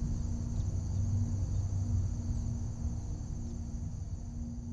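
A steady high insect trill, like crickets, over a low rumble and a faint low steady hum, all slowly fading out toward the end.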